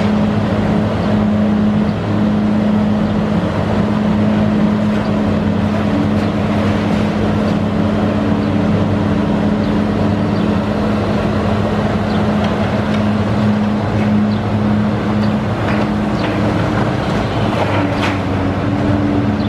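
Diesel engine of a long-reach demolition excavator running steadily under load as its grapple works. A few faint cracks and knocks of breaking debris come near the end.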